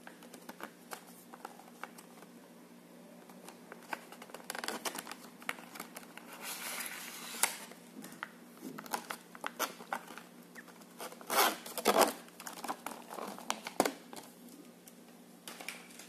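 Clear plastic blister packaging and its card backing handled and pulled apart by hand to free a small USB desk fan: irregular crinkling, rustling and sharp plastic clicks, loudest about three-quarters of the way through.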